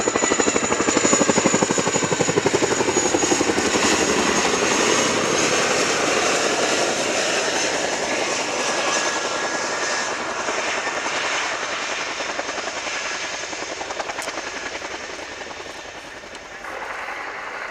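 Boeing Chinook HC6A tandem-rotor helicopter flying low past, its two rotors beating out a rapid, even blade slap over the steady high whine of its turbine engines. The sound slowly grows quieter, then shifts abruptly near the end.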